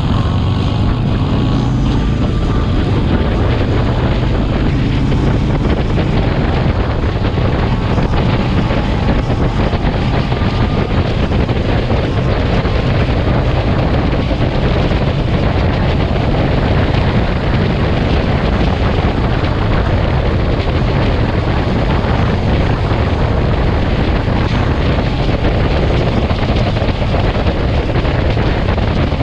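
Steady, loud wind noise buffeting the microphone of a motorcycle-mounted camera at highway speed, with engine and road rumble underneath.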